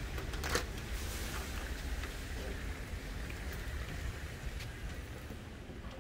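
Glass door opened with a sharp click about half a second in, over a steady low rumble and hiss of background noise that eases off near the end as it goes inside.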